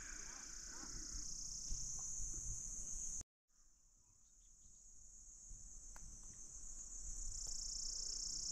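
Steady, high-pitched chorus of insects trilling. It breaks off suddenly about three seconds in, then fades back up and holds.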